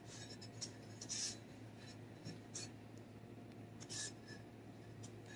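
Faint soft scraping and swishing of a silicone spatula spreading cream cheese icing across a cake layer, with the clearest strokes about a second in and again about four seconds in. A low steady hum runs underneath.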